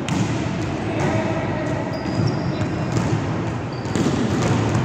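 A volleyball being struck during a rally, with a few sharp hand-on-ball hits and bounces echoing in a gym over a steady background din.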